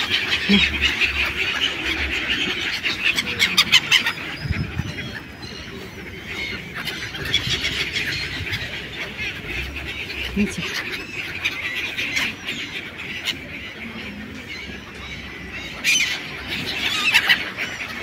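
A flock of gulls calling over the water: many short, overlapping calls, busiest in the first few seconds and again near the end.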